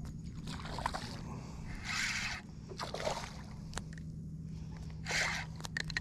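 Water splashing in short bursts as a small hooked snook thrashes at the surface while being reeled in. There are a few sharp clicks and a steady low hum underneath.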